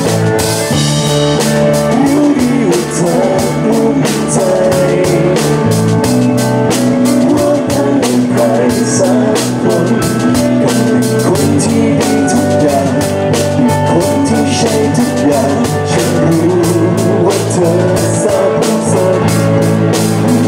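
A live rock band playing a song with a steady drum-kit beat, electric guitar and keyboard, and a singer on vocals.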